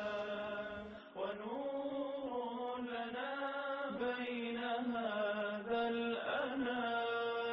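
A single voice reciting the Quran in long, held, melodic phrases, playing quietly. There is a short break about a second in, after which the chanting resumes.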